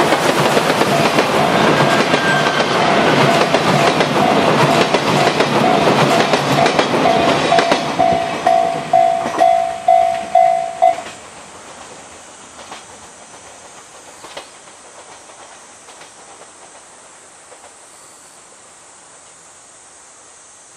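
A steam-hauled train of a C57 locomotive clattering past over the rail joints, loud at first and dying away about eight seconds in. Through it a level-crossing warning bell rings in a steady ding-ding about twice a second and stops about eleven seconds in, leaving only a quiet outdoor background.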